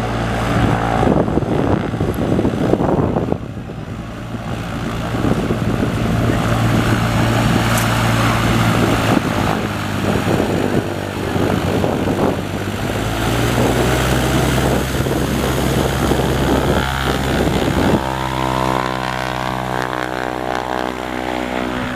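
A 1977 Cessna 182Q Skylane's six-cylinder Continental O-470 engine and propeller running at low taxi power as the plane rolls past and turns away. About 18 seconds in, the engine note changes and rises slightly.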